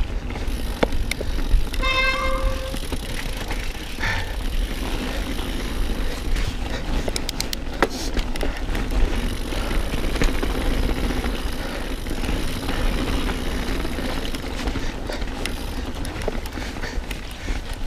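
Mountain bike riding down a wet, rough trail, heard from a bike- or body-mounted action camera: steady wind buffeting and tyre rumble with scattered rattles and clicks from the bike. A brief squeal sounds about two seconds in.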